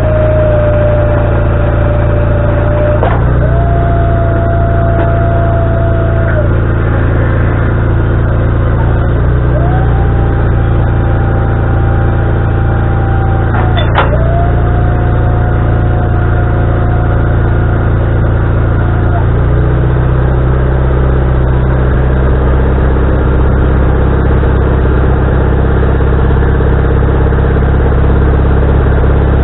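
Wood-Mizer LT40HD band sawmill running steadily. A mid-pitched whine comes and goes twice, first for about six seconds, then for about eight seconds. Two sharp clicks are heard along the way, and the low engine note shifts about two-thirds of the way through.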